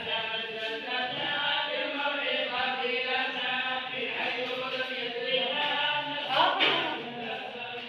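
Voices chanting together in long, drawn-out notes, with a brief rise in pitch and loudness about six and a half seconds in.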